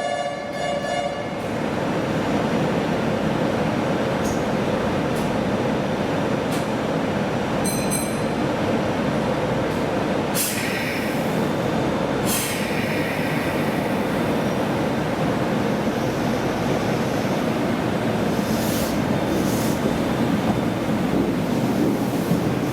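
Meitetsu electric train moving along the platform of an underground station, a steady rumble of wheels and motors with light wheel squeal. Two short sharp hisses come about ten and twelve seconds in.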